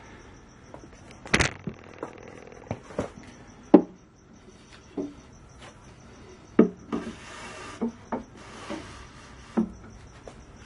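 Irregular knocks and clicks from hands working the wire and fittings of a homemade plywood coil winder, with two short scraping rasps near the middle. Crickets chirp faintly and steadily behind.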